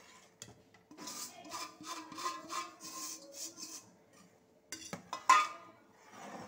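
A steel ladle stirring semolina into boiling water in a steel pot, scraping the pot in quick strokes, about three a second. One sharp clank about five seconds in is the loudest sound.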